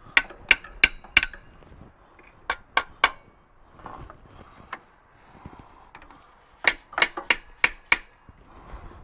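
Hammer blows on metal, ringing sharply, in three quick runs of four, three and five strikes, knocking at a stuck part to work it loose.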